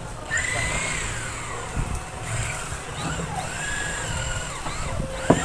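Hand-held electric power tool working timber, its motor whine sagging in pitch and recovering several times as it bites, with a sharp knock near the end.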